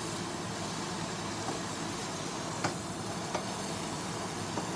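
Butternut squash and okra sizzling steadily in a stainless steel frying pan, with a few faint light clicks.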